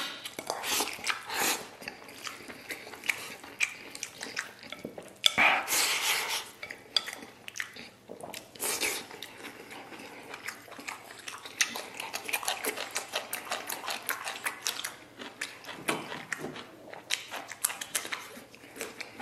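Close-up eating sounds: wooden chopsticks clicking and scraping against a ceramic bowl of fried rice, with chewing between the clicks and a few longer noisy mouthfuls.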